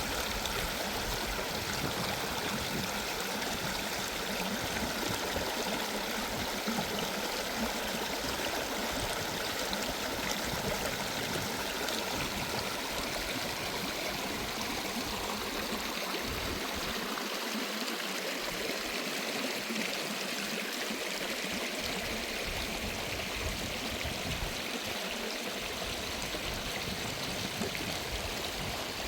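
Running water of a small stream, flowing steadily.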